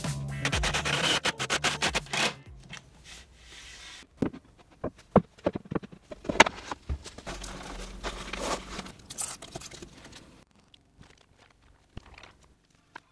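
Background music that stops about two seconds in, followed by scattered knocks, clicks and a stretch of scraping from hands-on work with wood and tools.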